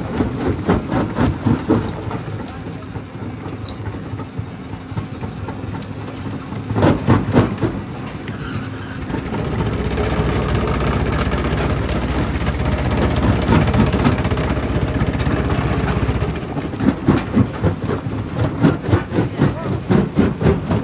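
Stone jaw crusher running, with rock knocking and cracking in irregular bursts and a steadier low rumble in the middle.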